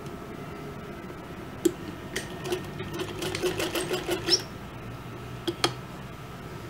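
Mumtaz Sons sewing machine stitching a seam: a quick run of clicks, about five a second, for around two seconds in the middle, with single clicks before and after.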